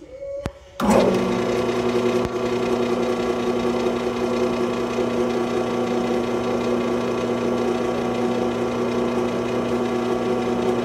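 Metal lathe with a Stihl MS500i chainsaw cylinder in its chuck, switched on after a click about a second in and then running steadily with a hum of several steady tones, set up for cutting the cylinder's squish band.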